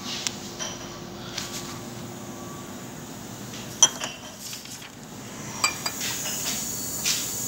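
Scattered light clinks of glassware, the sharpest about four seconds in and a few more near the end, over a faint steady hum.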